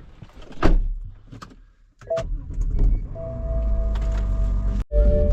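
A single knock, then about two seconds in a car engine starts and runs steadily, heard from inside the cabin with a steady tone over it.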